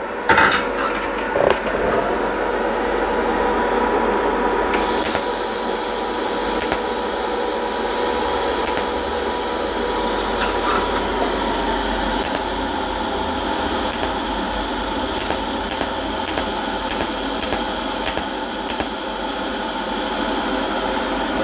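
TIG welding arc from a GTP welder in spot mode, firing a long run of short 0.1-second tack spots at 200 A: a steady buzz with repeated short pulses. A brighter hiss comes in about five seconds in.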